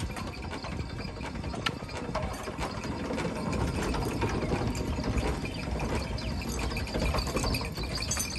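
Ox-driven kharas flour mill turning: its large toothed gear wheel and wooden drive gear clatter in a steady, continuous rattle of many small clicks as the oxen circle.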